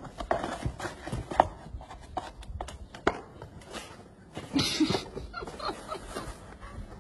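Cardboard box scraping and crinkling with scattered sharp clicks as a large dog steps into it and lowers itself to sit, the loudest rustle coming about four and a half seconds in.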